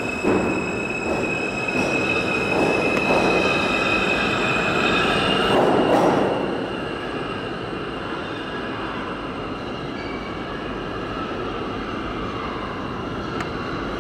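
R160 subway train pulling out of a station: running rail noise with several steady high-pitched tones, loudest about six seconds in, then quieter as the train moves off into the tunnel.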